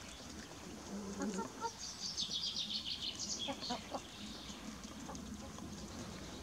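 Chickens calling and clucking, with a quick run of high, rapid chirps about two seconds in.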